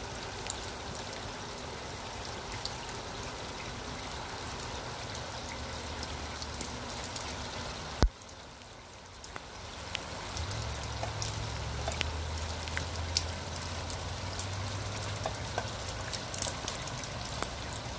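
Rainwater running and trickling down a metal rain chain over steady rain, with scattered drip ticks. A single sharp click comes about eight seconds in, and a low rumble sits under the water for the second half.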